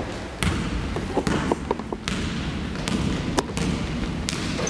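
A basketball bouncing on a hardwood gym floor: a handful of sharp bounces, roughly a second apart.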